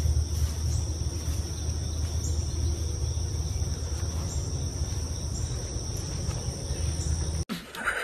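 Insects trilling steadily in one high continuous tone, over a low steady rumble. Both cut off suddenly about seven and a half seconds in.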